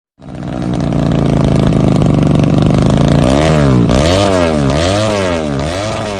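Underbone motorcycle engine running at a steady speed, then revved repeatedly with quick throttle blips from a bit past three seconds in, the pitch falling and rising about twice a second.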